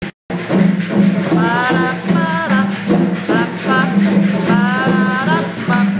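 A drum circle with hand drums and shakers playing a steady rhythm, and voices singing over it.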